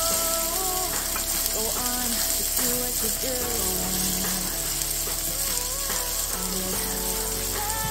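Diced red onions sizzling in oil in a nonstick wok as a spatula stirs them, a steady hiss, with background music carrying a melody.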